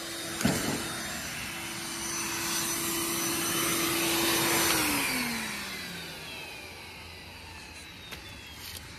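Electric blower forcing air through a swimming pool's main drain line to blow the water out for winterizing: a steady motor whine over rushing air, with a short knock about half a second in. About five seconds in the blower is switched off, and its pitch falls as the motor spins down.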